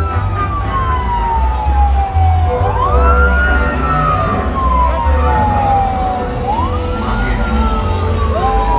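A siren wailing, its pitch rising quickly and then falling slowly, about three times, over a deep bass beat from loud music.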